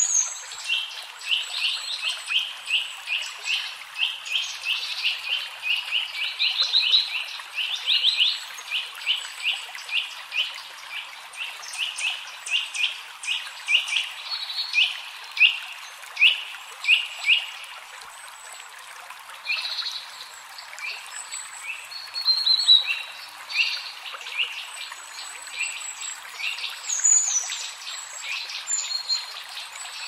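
Forest ambience: a bird chirping in a fast repeated series, about two short chirps a second, through the first half, then sparser chirps and thin high-pitched bird notes, over a steady hiss.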